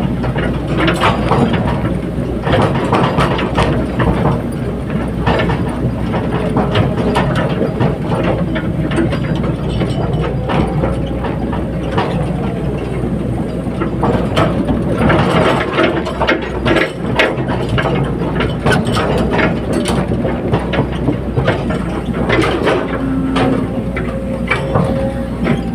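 Caterpillar 320D hydraulic excavator working: the diesel engine running steadily under load, with irregular metallic clanks and clatter and a whine that rises and falls now and then.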